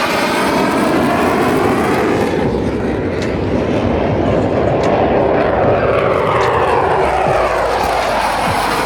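F-16 Fighting Falcon fighter jet flying past, a loud steady jet-engine noise whose tone sweeps down and back up as it goes by.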